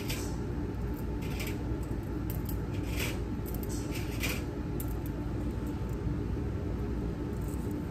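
Light clicks and clinks of stainless steel surgical instruments being handled, a handful of short ticks mostly in the first few seconds, over a steady low room hum.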